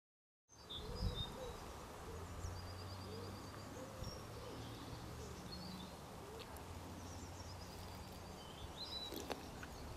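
Small birds singing and calling, with short high chirps and a quickly repeated trill, over a steady low hum. The sound begins abruptly about half a second in.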